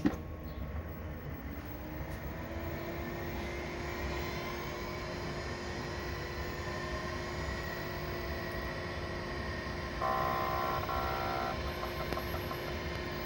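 Amiga 2000 powering up: its drives and power-supply fan spin up with a rising whine that settles into a steady hum. About ten seconds in comes a louder buzzing burst of drive activity lasting about a second and a half, followed by faint clicking.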